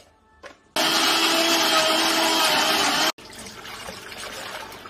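Countertop blender motor running loudly for a little over two seconds, puréeing tomato and onion, then cutting off abruptly. Then water pours from a plastic jug into a stainless steel bowl, quieter and steady.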